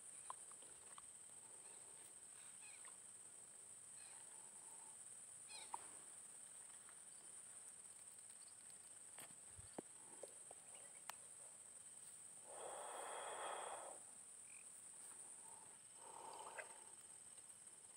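Near silence with a faint, steady, high-pitched insect drone, a few faint clicks, and a short soft rustle about two-thirds of the way through.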